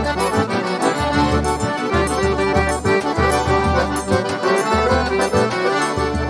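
An ensemble of piano accordions playing a tune together in full chords, over a zabumba bass drum beating a steady rhythm.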